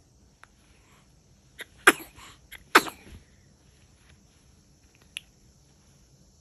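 Baby sneezing twice in quick succession, about two and three seconds in, each sneeze a short sharp burst with a small catch of breath just before it.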